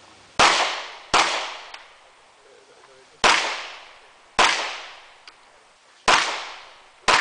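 Pistol shots fired during an IPSC practical-shooting stage: six sharp reports spaced about one to two seconds apart, each trailing off in a short echo.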